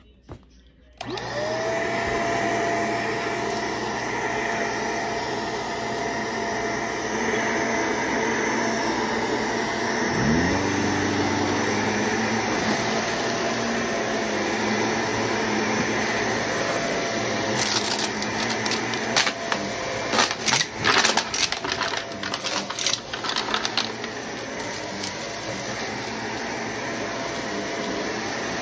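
Shark upright vacuum cleaner switched on about a second in, its motor whine rising and then running steadily; about ten seconds in a second, lower hum spins up. Between about 18 and 24 seconds there is a run of sharp clicks and rattles as crushed bits of debris are sucked up from the carpet.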